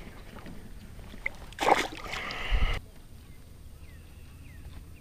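A largemouth bass dropped back into the lake: a sharp splash about one and a half seconds in, followed by about a second of sloshing that stops abruptly.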